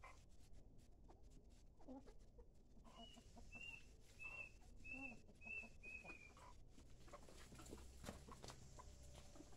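Faint sounds of a flock of chickens feeding on watermelon: scattered soft pecking taps and clucks. About three seconds in there is a run of six short high calls, evenly spaced about half a second apart.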